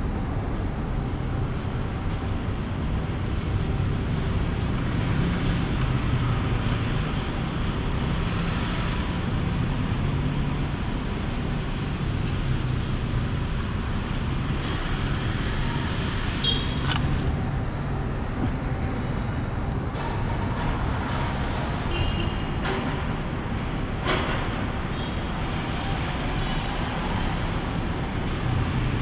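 Steady urban road traffic: a constant low rumble of cars and motorbikes, with a couple of short high-pitched chirps about two-thirds of the way through.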